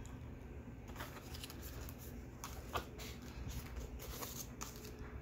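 Handmade cardstock greeting cards being handled and shuffled: soft, irregular paper rustles and light clicks as the cards are moved and set aside.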